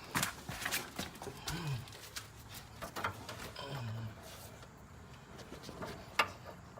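Bolt cutters clicking and scraping on a sway bar end link bolt, with short strained grunts from the person squeezing the handles, and one sharp click near the end. The bolt is hardened and the cutters fail to bite through it.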